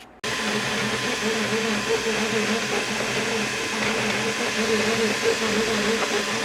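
Desktop 3D printer running: a steady fan whir with its stepper motors humming in wavering tones, starting suddenly just after the beginning.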